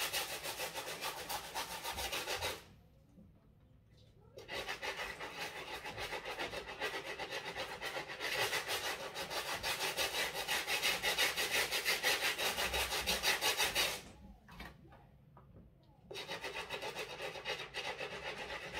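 Stiff-bristle brush scrubbing the sole of an Adidas Yeezy Boost 350 sneaker in rapid back-and-forth strokes, a dense scratchy rubbing. It stops briefly twice, about three seconds in and again about fourteen seconds in.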